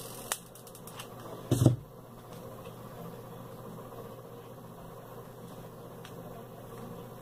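Craft-table handling noises over a steady low hiss: a light click near the start, then a short knock on the tabletop about a second and a half in as the hot glue gun is put down.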